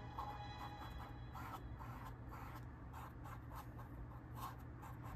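Paintbrush scratching across canvas in quick short strokes, about three a second, as acrylic paint is laid on in short fur strokes.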